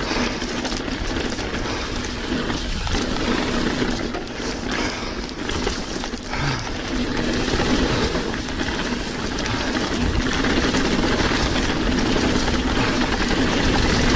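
Mountain bike riding down a trail, heard from a chest-mounted action camera: a continuous rattle and rumble of tyres and frame over the dirt and rocks, with wind noise on the microphone and a steady faint buzz underneath.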